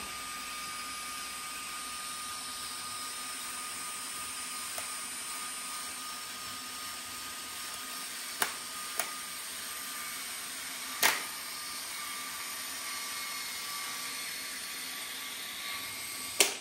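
Seesii 21-volt cordless caulking gun's electric motor running steadily with a whine as it drives caulk out of the tube. A few sharp clicks come through it, around eight, nine and eleven seconds in and again just before the end.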